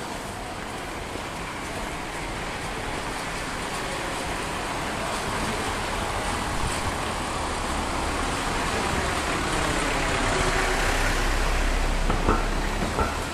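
Street traffic noise: a motor vehicle approaching, its engine and road noise growing steadily louder to a peak with a low rumble toward the end. Two short knocks sound near the end.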